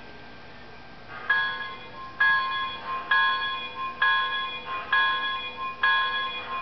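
Model steam locomotive's sound-system bell ringing in steady strokes a little under a second apart, starting about a second in.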